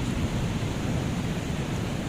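Steady, even rushing noise outdoors, heaviest and rumbling in the low end, with no distinct events.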